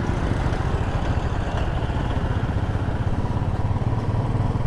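Royal Enfield motorcycle engine running steadily while riding, under an even hiss of wind and road noise.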